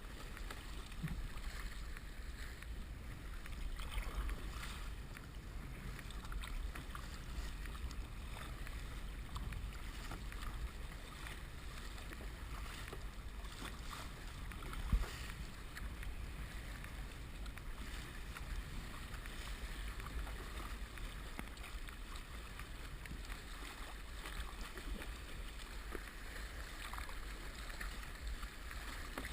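Steady, muffled rumble of water and wind, heard through the sealed waterproof housing of a head-mounted GoPro HD Hero2 while kayaking in the sea, with a few faint splashes and one sharp knock about 15 seconds in.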